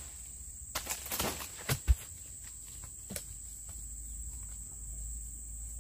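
Dodos harvesting chisel chopping into an oil palm fruit bunch stalk: several sharp strikes in the first two seconds, the heaviest a low thump about two seconds in, and one more about a second later. A steady high-pitched insect tone runs underneath.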